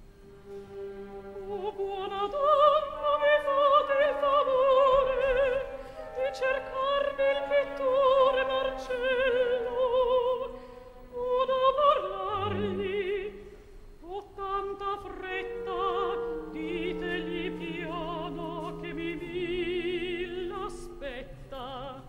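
Operatic soprano singing sustained Italian phrases with wide vibrato, over a quiet orchestral accompaniment.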